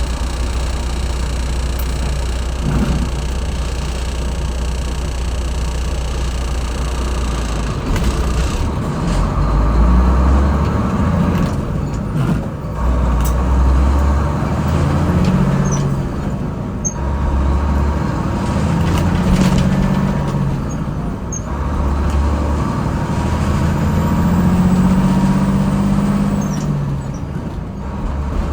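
GMC cab-over truck's engine, running steadily at first, then from about eight seconds in rising and falling in repeated steps as the truck is driven through the gears.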